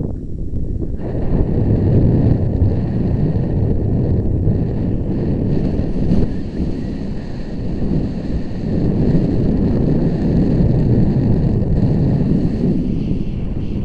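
Wind rushing over and buffeting the microphone of a camera carried fast down a snow slope, a steady low rumbling noise that grows louder about a second in.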